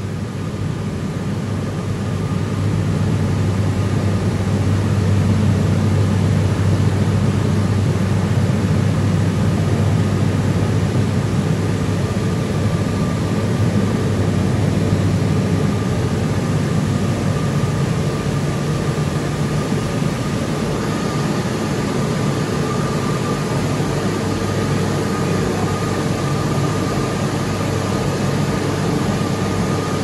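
Apple washing and milling machinery running in a cider press house: a steady low hum with a constant high whine over an even wash of noise, growing louder over the first few seconds.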